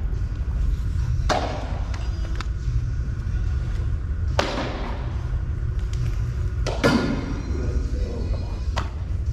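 Sharp thuds of balls striking during pitching or batting practice, with a short echo after each: three louder hits spaced a few seconds apart and two lighter ones. A steady low rumble runs beneath them.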